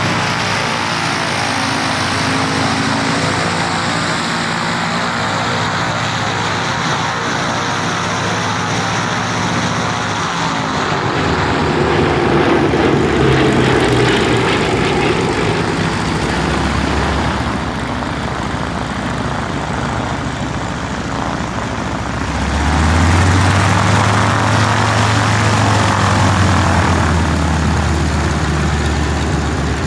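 Bristol Blenheim's twin Bristol Mercury nine-cylinder radial engines running, the propeller drone steady at first, then shifting in pitch and swelling louder about a third of the way in and again about two-thirds through.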